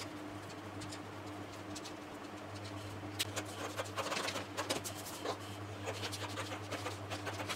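Marker scratching on paper, then sheets of paper pattern pieces rustling, tapping and sliding on a wooden table in a run of short crinkles and clicks from about three seconds in. A low steady hum sits underneath.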